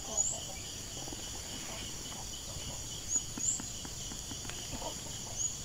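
Steady, high-pitched chorus of insects trilling, with a few short rising chirps over it.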